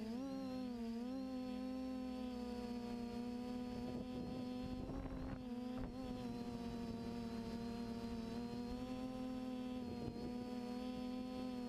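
Electric motors and propellers of an FPV multirotor whining at a steady pitch, dipping briefly with throttle changes near the start and again near the end. A short rush of noise comes about five seconds in.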